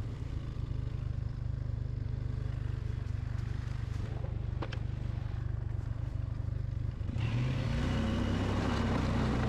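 1997 Polaris Sportsman 500 ATV's single-cylinder engine running steadily while pushing a snow plow, with a single short click a little before halfway; about seven seconds in it gets louder and fuller.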